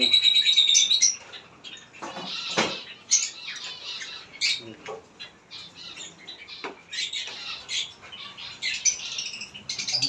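Caged lovebirds calling: a loud continuous high call cuts off about a second in, then scattered short chirps and squawks, with a few knocks among them.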